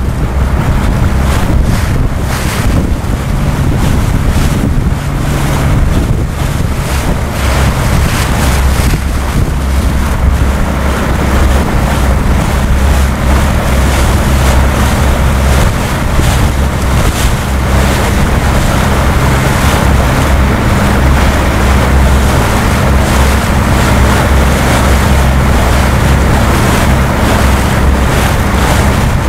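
Strong wind buffeting the microphone over rushing, splashing waves as a sailing yacht heels through choppy water, with a steady low hum underneath.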